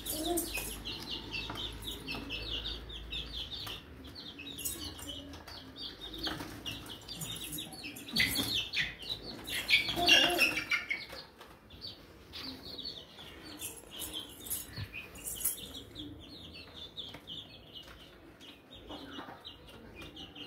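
Chicken chicks peeping: a steady stream of short, high cheeps, with a few louder calls about eight and ten seconds in.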